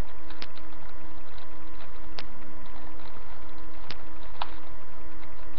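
Rubik's Cube layers being turned by hand, giving four sharp plastic clicks spread over a few seconds. Behind them runs a steady hiss and electrical hum from the webcam microphone.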